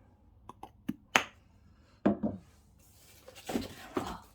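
Hands handling wrapped candles and their packaging: a few light knocks and taps in the first second or so, then rubbing and rustling of wrapping.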